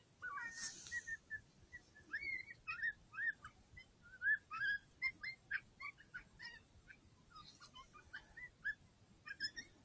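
Coyote yips and whimpers: many short, high calls that rise and fall in pitch, several a second, with brief gaps.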